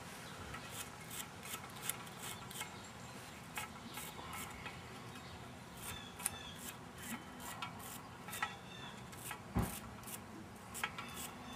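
Small hand wire brush scrubbing the oxidized ends of copper house wires, a run of short, irregular scratchy strokes that clean the corrosion off for a better contact. A single louder thump about nine and a half seconds in.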